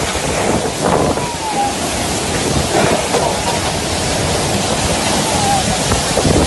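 Storm-force wind blowing hard across the microphone: a loud, steady rush of noise, with a faint thin whistle gliding briefly now and then.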